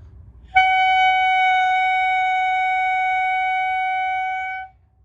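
Clarinet reed and mouthpiece blown with a beginner's embouchure, giving one steady, fairly high tone held for about four seconds. It starts abruptly under a second in and stops cleanly.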